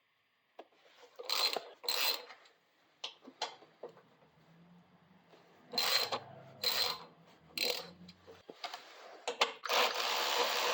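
Ratchet wrench working the 8 mm bolts loose on a mini bike's brake caliper: short runs of ratchet clicking, with a longer, steadier run near the end.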